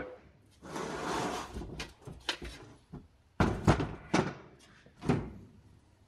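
Heavy steel skid steer axle and bearing-housing parts being handled on a bench: a scraping rustle about a second in, then a series of sharp metal clunks and knocks, the loudest a little past the middle.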